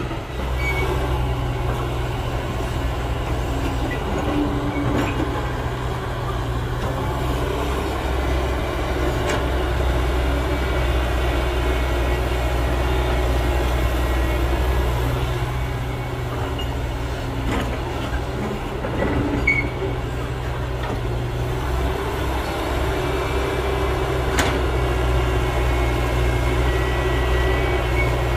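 Heavy diesel engine of an excavator loading a dump truck, running with a low drone that swells and eases every several seconds as it works, with a few faint knocks.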